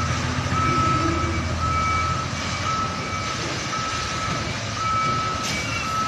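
Reversing alarm on a Mitsubishi Fuso container truck beeping about once a second, over its diesel engine running low.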